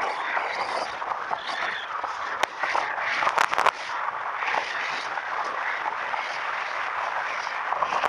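Wind rushing over an action camera's microphone during a ride, a steady rushing noise, broken by a sharp click about two and a half seconds in and a quick cluster of crackling clicks about a second later.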